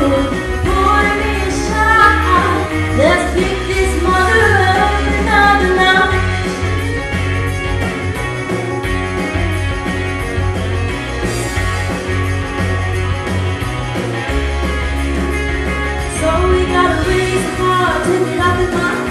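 Young female singer performing an upbeat country-rock song into a microphone over an amplified instrumental accompaniment with bass, drums and guitar. The sung lines ease off for a stretch in the middle, where the accompaniment carries on.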